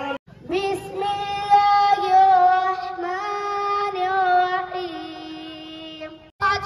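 A single high voice sings long, held melodic notes with a slight waver, starting just after a brief break and cutting off abruptly near the end.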